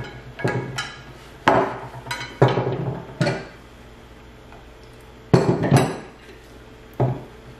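About seven sharp cracks and knocks, some in quick pairs and some with a short ring, of king crab leg shells being broken open against a plate or table.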